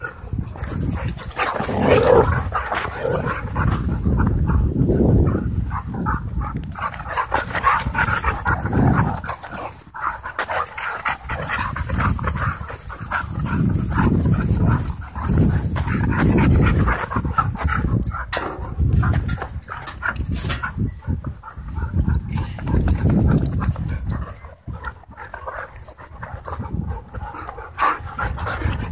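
Several dogs play-fighting at close range, growling and panting in irregular bursts.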